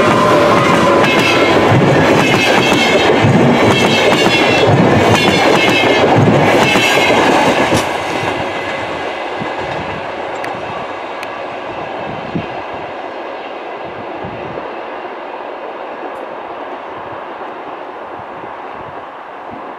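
Electric locomotive and double-deck InterCity coaches passing close, the wheels clattering rhythmically over rail joints. The noise drops off suddenly about eight seconds in as the last coach goes by, then fades to a dwindling rumble as the train draws away.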